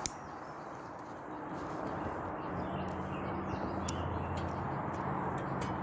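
Outdoor background noise with faint bird chirps; a low steady hum comes in about halfway through.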